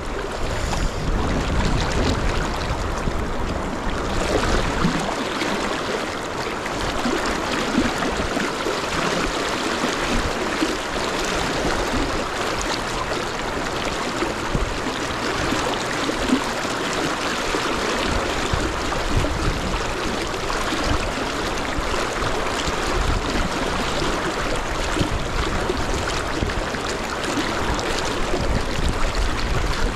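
River rapids rushing steadily, with a low rumble of wind on the microphone during the first few seconds.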